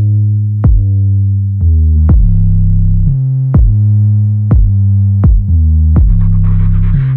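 Electronic background music: a deep synthesizer bass line with a drum-machine beat about once a second, and a hissing layer entering near the end.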